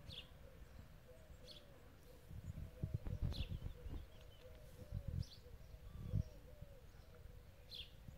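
Birds calling: a short high call repeats about every second and a half over a steady run of quick, lower calls. A few bursts of low rumble come in the middle and are the loudest sounds.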